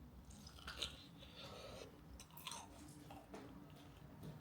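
Faint chewing of a mouthful of freshly baked, soft and doughy homemade bread with a garlic-butter top, a few soft irregular bites and chews.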